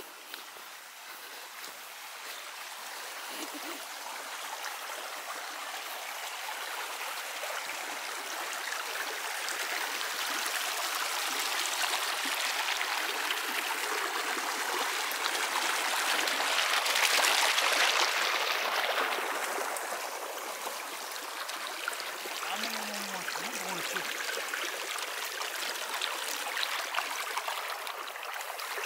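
Rushing water of a small, fast-flowing stream. It swells to its loudest a little past halfway through, then settles to a steady rush.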